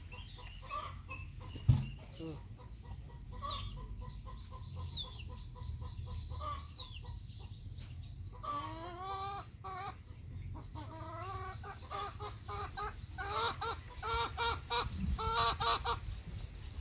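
Chickens clucking, with a long busy run of repeated clucks from about eight seconds in until near the end. A single sharp knock about two seconds in.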